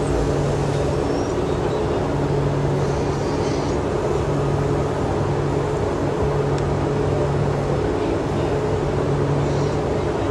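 Mumbai suburban local electric train running along the track, heard at the open carriage door: a steady rumble of wheels and wind, with a low hum that cuts in and out every second or two.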